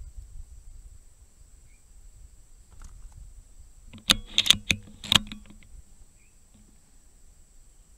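Four or five sharp mechanical clicks in quick succession, a little past halfway, from the air rifle being handled between shots.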